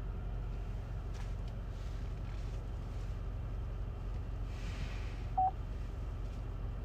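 A single short beep from the Vauxhall IntelliLink infotainment unit as its buttons are pressed, about five and a half seconds in, over a low steady hum in the car's cabin, with a few faint clicks.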